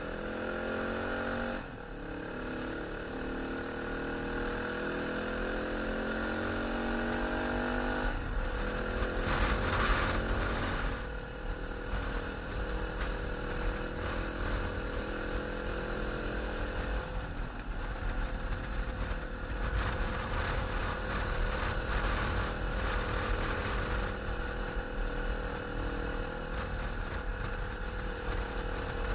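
Corven Touring 250 (Zongshen RX3) single-cylinder engine pulling the motorcycle along, its pitch climbing slowly and dropping at several gear changes. Steady wind rumble on the microphone.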